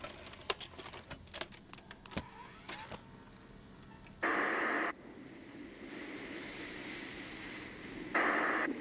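A VCR's buttons and tape mechanism clicking and clunking as a videotape is set to play. Then come two short, loud bursts of hiss about four seconds apart, over a soft, steady rushing hiss from the tape's playback.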